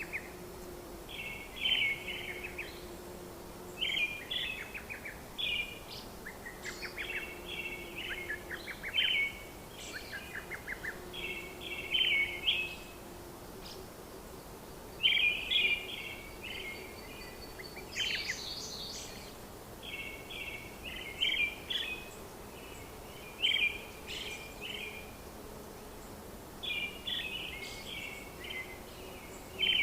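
Small birds chirping in short phrases of song every second or two, over a faint low hum that comes and goes.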